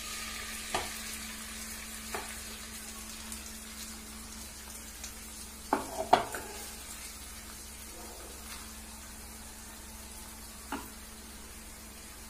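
Parboiled basmati rice being tipped into hot ghee in a frying pan, sizzling steadily. A few sharp clinks of utensils against the pan cut through it, the loudest pair about six seconds in.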